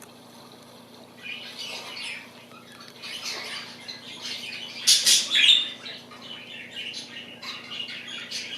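Pet budgerigars chattering and squawking in quick, irregular chirps, starting about a second in, with the loudest squawks about five seconds in.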